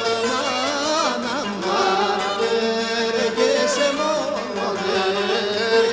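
Cretan syrtos music: a lyra playing a wavering, ornamented melody over steady accompaniment.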